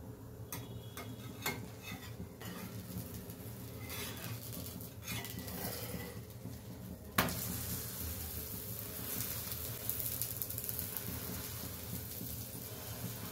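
A metal spatula clicking against an iron tawa, with one sharp clank about seven seconds in, then sizzling as the flipped puran poli is pressed down and fries on the hot griddle.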